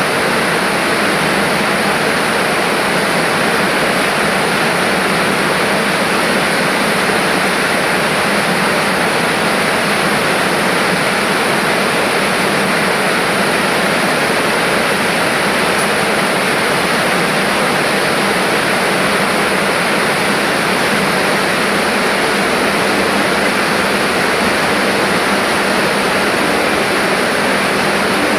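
Chili-powder sachet packing machine running, a steady even whir with no distinct strokes standing out.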